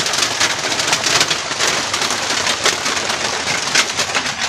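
Rain falling steadily, a dense, even patter.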